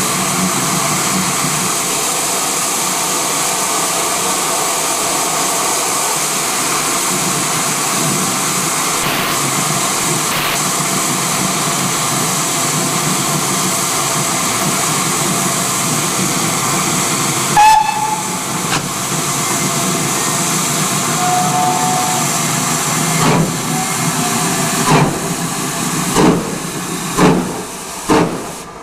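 GWR Hall class 4-6-0 steam locomotive 4953 Pitchford Hall standing with steam hissing steadily from its safety valves, then a brief whistle. It then starts away, with slow exhaust chuffs that come closer together as it gathers speed.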